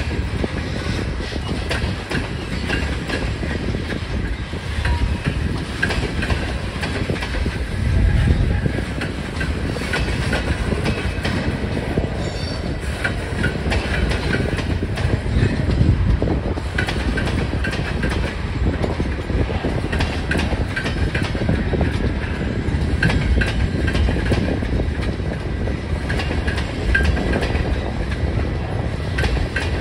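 Freight cars of a mixed manifest train (tank cars, covered hoppers, boxcars) rolling steadily past, their wheels clacking over rail joints in a continuous run. A brief faint wheel squeal comes now and then, over a heavy low rumble that gusts of wind on the microphone add to.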